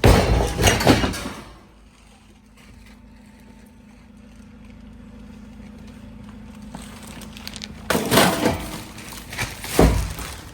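Scrap being loaded into a van: a loud clatter at the start, then another clattering stretch with a sharp knock shortly before the end. A steady low hum runs under the quiet stretch between them and stops before the second clatter.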